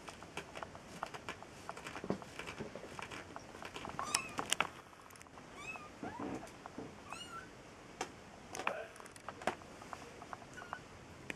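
Very young kittens mewing: several short, thin, high-pitched mews come mostly in the middle of the stretch, among scattered light clicks and scuffles.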